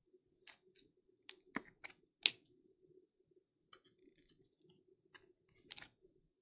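Trading cards and rigid plastic top loaders being handled and set down on a table: a series of sharp clicks and taps, the loudest a little over two seconds in, with soft rustling between them.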